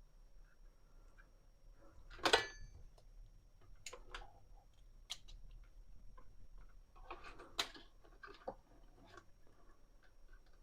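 Scattered sharp clicks and knocks of small plastic parts being handled, the loudest about two seconds in and a cluster around seven to nine seconds, as clip-on connectors on a 24-volt LED strip are worked. A faint steady high whine sits underneath.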